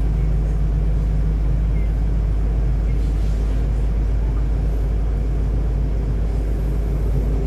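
Steady running rumble of a DB Class 423 electric multiple unit travelling at speed, heard from inside the carriage.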